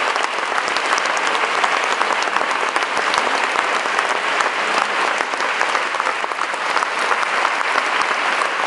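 Concert audience applauding, a dense, steady clapping from many hands.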